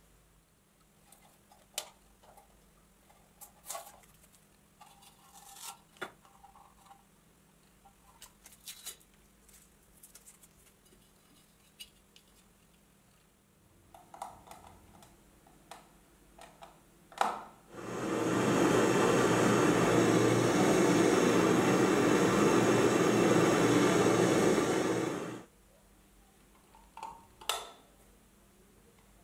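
Light clicks and taps of small brass parts being handled, then a loud, steady hiss lasting about seven seconds that cuts off sharply, followed by a couple more taps near the end.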